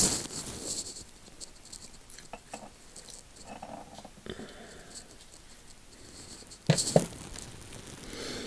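Snap ring pliers working the retaining ring on the head of a Sparta 1/2-inch-drive ratchet: small metal clicks and scrapes, with a sharp click at the start and two louder clicks close together near the end.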